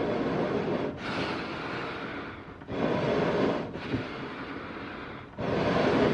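Eerie animal breathing: slow breaths in and out, a new breath about every two and a half seconds, each opening with a louder, deeper rush that tails off into a longer, fainter hiss.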